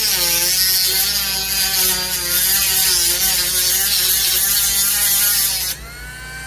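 Handheld power tool cutting into the laptop, its motor pitch wavering as the load changes. It drops off sharply about a second before the end, leaving a fainter steady whine.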